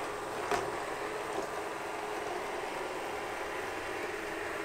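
ILIFE V7S Pro robot vacuum running over carpet: a steady, surprisingly quiet hum of motor and suction fan with a faint steady tone, and one light click about half a second in.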